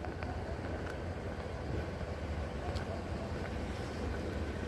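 Steady low rumble of idling vehicles and street traffic, with a few faint clicks.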